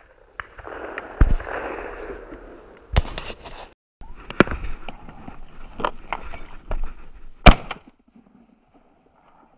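Shotgun shots at a flushing quail: a loud bang about a second in and another near the end, with a lesser sharp bang around three seconds, and rustling and small knocks between them.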